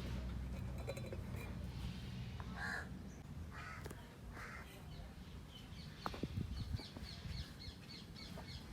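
Crows cawing, three short harsh calls a third of the way in, over a steady low hum. A rapid high ticking starts about two-thirds of the way through.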